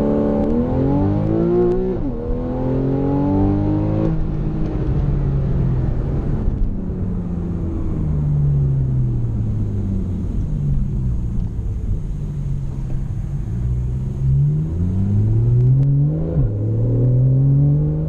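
Naturally aspirated 3.4-litre flat-six of a Porsche 991.1 Carrera, heard from inside the cabin with sport mode on and the sport exhaust open. The engine note rises through two quick upshifts in the first four seconds, falls away as the car slows, then climbs again with another shift about sixteen seconds in.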